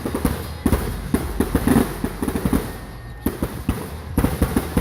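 Fireworks display: aerial shells bursting in quick succession, a dense, irregular run of loud bangs and cracks.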